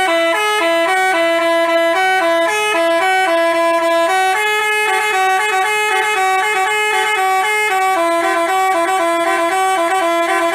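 Bus 'telolet' basuri musical air horn playing a fast tune of short, stepped notes, loud and unbroken.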